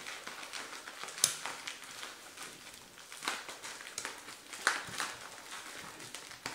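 Handling noises from small plastic items and their packaging: a few sharp clicks and taps, the strongest about a second in, with faint rustling between.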